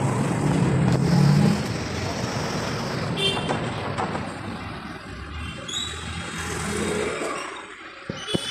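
City street traffic: a motor vehicle running close by for the first second and a half, then a steady traffic hum with two short high-pitched tones, fading quieter near the end.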